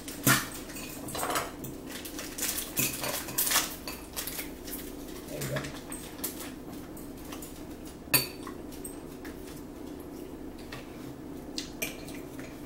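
Metal forks clinking and scraping on plates as salad is eaten, a run of short clinks with two sharper ones, about a third of a second in and about eight seconds in.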